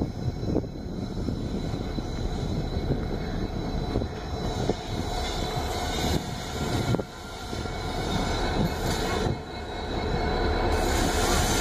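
Twin WDG-4 diesel-electric locomotives running light and approaching, their two-stroke 16-cylinder EMD engines giving a steady low rumble that grows louder toward the end. Near the end a hiss of wheel and rail noise joins in as they draw close.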